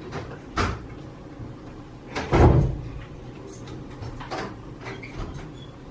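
Household knocks and clatter: a few separate thumps and clicks, the loudest a heavier clatter about two and a half seconds in.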